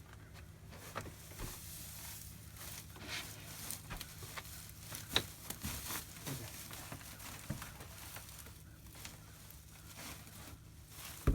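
Faint rustling with scattered light taps and clicks, the sound of people moving about in loose hay and straw.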